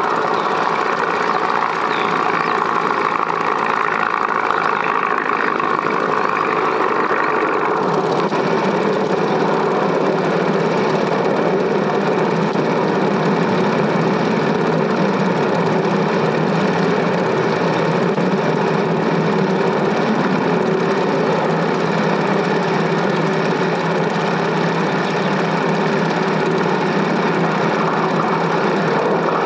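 Steady mechanical running noise with a fast clatter, changing abruptly in character about eight seconds in.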